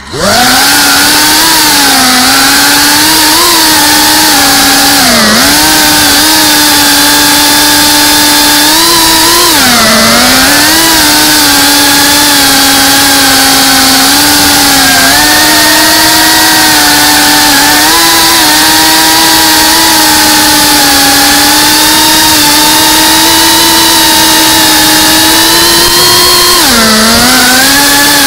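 FPV quadcopter's brushless motors and propellers whining loudly in flight, heard from the camera on the drone itself. The pitch rises and falls with the throttle, dropping sharply and recovering a few times.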